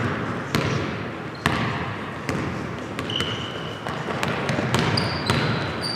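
A basketball bouncing on a hardwood gym floor in irregular thuds during play, with two short high squeaks typical of sneakers on the court, over the noise of players moving in the hall.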